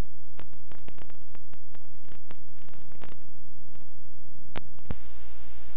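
Recording noise on a blank stretch of videotape: a steady low hum with scattered clicks and crackles. About five seconds in it switches suddenly to an even hiss.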